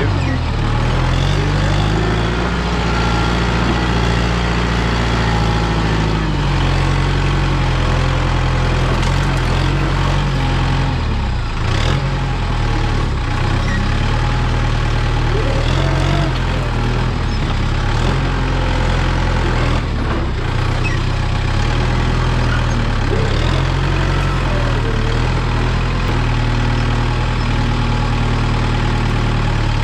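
New Holland mini excavator's engine running steadily under working load while it digs. Its note steps up and down a little every few seconds as the hydraulics take load.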